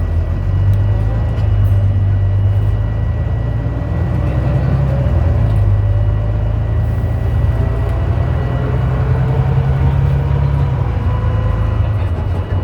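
Volvo B9TL bus's diesel engine and ZF Ecolife automatic gearbox running under way, heard from inside the bus, with a whine rising slowly in pitch over several seconds as it accelerates. A constant high beep sounds throughout, which the uploader puts down to something loose, like a panel, at the back of the bus.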